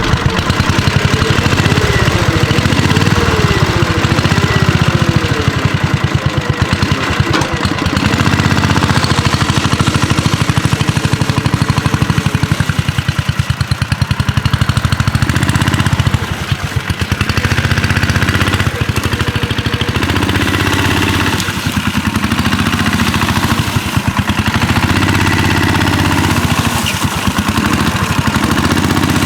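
Single-cylinder engine of a 1963 Cushman Trailster scooter running continuously, its speed and load rising and easing several times as it pulls logs.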